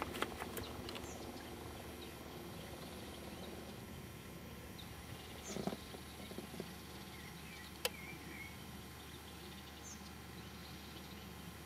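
Faint steady outdoor background with short bird chirps now and then. A few sharp clicks and a brief broader rustle come a little past halfway.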